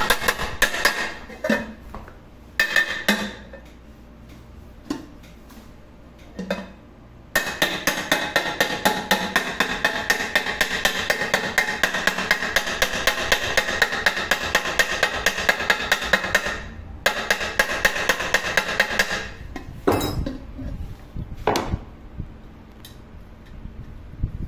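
Hammer striking a rivet set to peen the rivets holding a handle bracket onto a Marmicoc pressure cooker, a fast even run of ringing metal taps at about five a second. A short run at the start, a few single knocks, then a long run with a brief break, and a few last single taps near the end.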